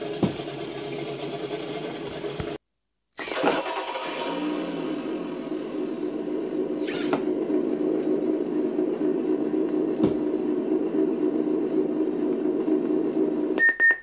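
Simulated engine sound from a G.T.Power RC car sound and light module, played through its small speaker and running steadily. It cuts out for a moment about three seconds in, then starts up again. A few short electronic beeps sound near the end.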